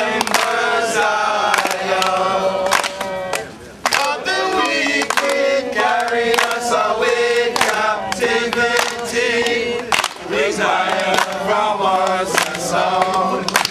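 A mixed group of men and women singing a folk song together in unison, the melody bending and ornamented, with sharp percussive knocks falling irregularly through it.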